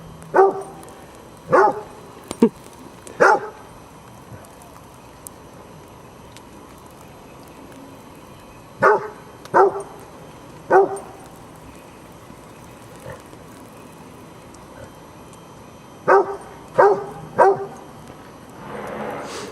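A basset hound barking in three bursts of about three sharp barks each, with several seconds of pause between bursts. A brief rush of noise comes near the end.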